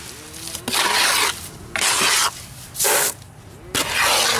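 Garden hose spray nozzle squirting water into a wheelbarrow of cement mix in about four short bursts, each starting and stopping sharply. The water thins leftover Portland cement mix to a soupy splash coat.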